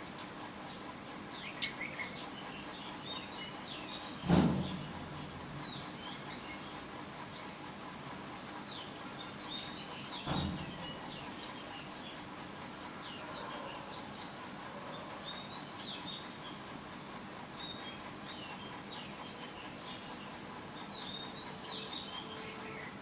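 Small birds chirping and twittering, over an even, high-pitched run of ticks. Two low thumps about four and ten seconds in, the first the loudest.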